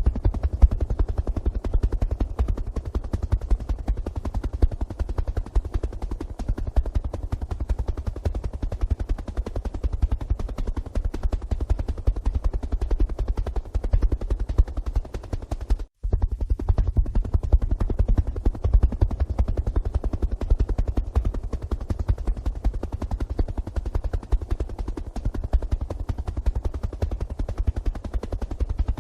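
Helicopter rotor and engine running steadily, with its rapid low beating of the blades. It cuts out for a split second about halfway through, then carries on the same.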